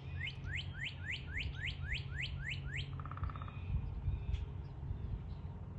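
A bird singing a quick series of about ten rising whistled notes, roughly three a second, that stops about three seconds in, followed by a short buzzy note. A steady low rumble, like wind on the microphone, runs underneath.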